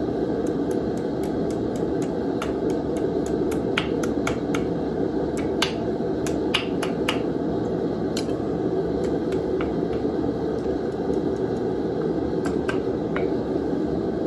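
Small hand hammer striking steel on an anvil in quick runs of light blows, flattening and evening out a forked piece. A steady rushing noise runs underneath.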